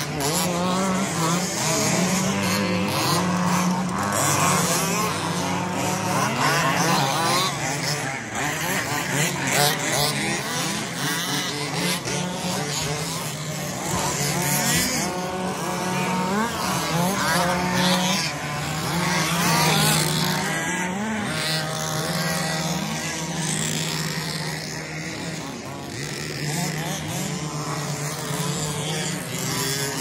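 Several radio-controlled 2WD off-road buggies racing, their motors whining up and down in pitch as they accelerate and brake around the track.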